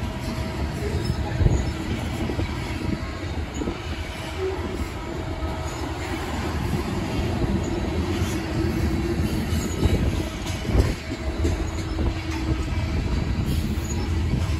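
Covered hopper cars of a freight grain train rolling past close by: a steady rumble of steel wheels on rail, with occasional knocks and a faint wheel squeal that comes and goes.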